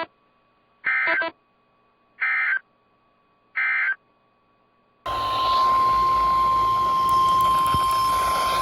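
NOAA Weather Radio broadcast: three short, identical digital data bursts about a second and a half apart, the SAME end-of-message code that closes the watch announcement. About five seconds in, static hiss comes up with the steady 1050 Hz weather radio alert tone, which announces the next warning.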